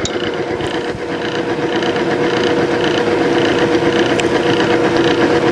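Timken oil film-strength test machine running under load with seven weights on its lever arm: a steady whine from the electric motor and the rotating arbor rubbing on the stationary test block in the oil bath, with a regular pulsing rasp, getting slightly louder about a second in.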